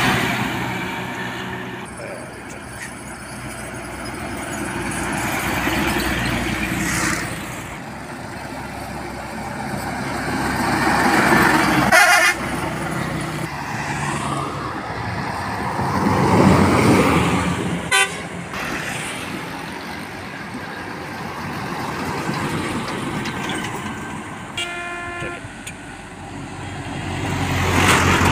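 Road traffic passing close by: trucks, a van and a bus go past one after another, each rising and fading. A short horn toot sounds near the end.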